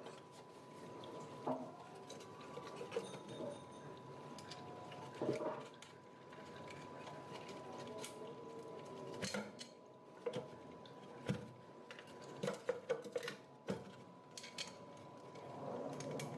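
Scattered clinks, taps and knocks of metal parts and tools being handled while working on a water pump, over a faint steady high hum.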